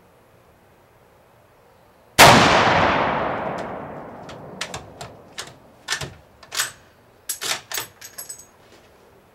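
Mosin-Nagant M44 carbine firing one 7.62x54R round, the report dying away over about two seconds. Then the bolt is worked by hand: a run of quick metallic clicks and clacks as it is opened, drawn back and closed on the next round.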